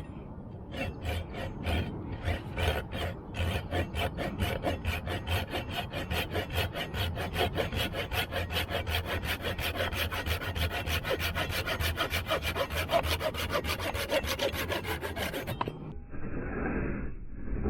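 Fine-tooth blade of a small Japanese pull-style folding saw rasping through a wooden stick in quick, even strokes, about four a second. Near the end the sawing stops abruptly and a duller, muffled rhythmic sound follows.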